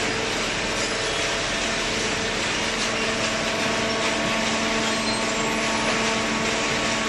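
Hydraulic power unit of a vertical baler running steadily: an electric motor and pump giving an even hum with a broad hiss, unchanging throughout.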